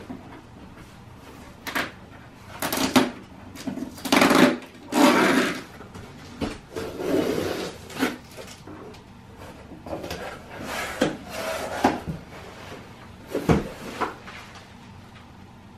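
Cardboard shipping box being handled and opened: a run of scraping, rustling and tearing sounds, loudest in the first half, with a sharp knock near the end.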